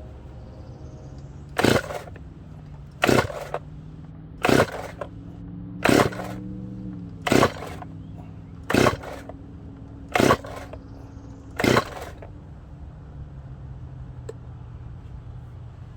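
Chainsaw being pull-started over and over, eight short rasping pulls of the recoil starter cord about one every second and a half, the engine turning over without catching: the freshly repaired saw will not start. A steady low hum runs underneath.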